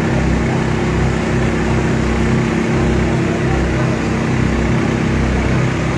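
An engine running at a constant speed, a steady drone with a broad hiss over it.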